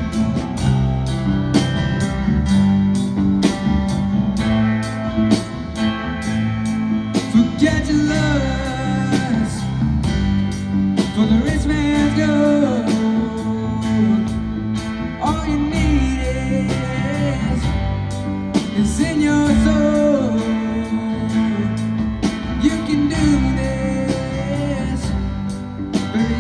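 A rock band playing a slow song, with guitars over a steady bass. From about eight seconds in, a lead melody slides and bends in pitch above them.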